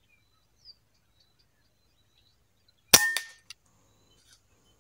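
PCP air rifle firing a single shot about three seconds in: a sharp crack with a brief metallic ring. A faint click follows about half a second later.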